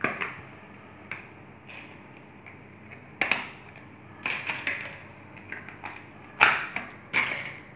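Thin plastic lids being pressed onto small plastic flan cups: sharp plastic clicks and crackles, about five of them a few seconds apart.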